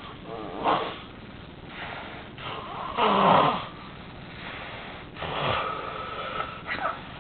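A man snoring heavily in his sleep: a run of irregular snores and snorts at uneven gaps, the loudest about three seconds in. The obstructed breathing is typical of sleep apnea, from a nose blocked by severe nasal polyps.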